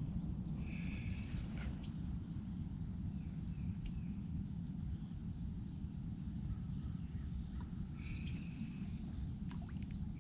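Low wind rumble on the microphone, with a steady high-pitched insect drone and two short bird calls, one about a second in and one near the end.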